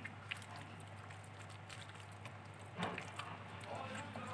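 Faint kitchen handling: a few light clicks and a soft knock about three seconds in, as macaroni is spread in a baking tray, over a steady low hum.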